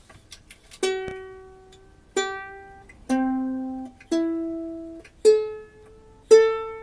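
Solid Hawaiian koa soprano ukulele being tuned: open strings plucked one at a time, six single notes at different pitches, each left to ring out for about a second while the pegs are adjusted.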